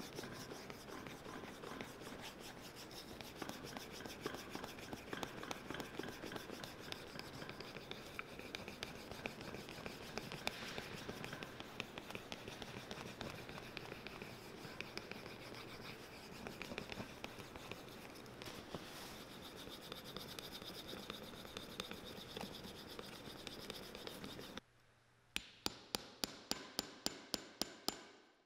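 A wooden dowel rubbed rapidly back and forth across a new leather boot sole, a dense scraping and rubbing of wood on leather. It stops near the end, and a run of about a dozen sharp, evenly spaced ticks, roughly four a second, follows.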